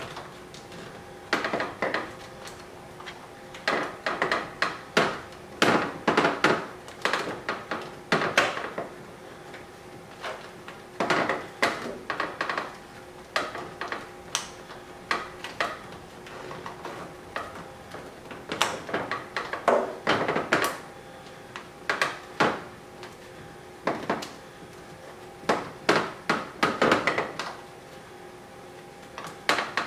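Irregular clicks, taps and light knocks in clusters: screws, washers and a carbon fiber diffuser fin being handled and fitted by hand against a car's rear bumper. Under them runs a faint steady hum.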